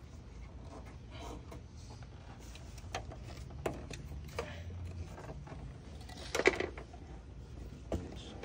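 Scattered clicks and knocks of a carbon fiber front fender and its clips and fasteners being fitted by hand onto an Infiniti Q50, with a louder clatter about six seconds in. A steady low hum runs underneath.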